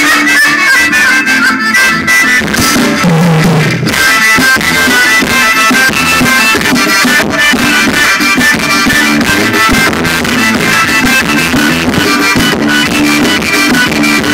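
Loud music playing over a Honda Fit's car sound system.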